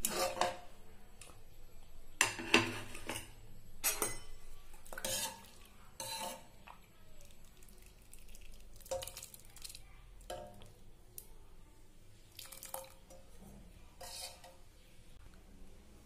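Clinks and knocks of metal cookware being handled: a pressure cooker's lid and a ladle against a pan. The sharp knocks come in a string, loudest and busiest in the first half, with sparser clinks later.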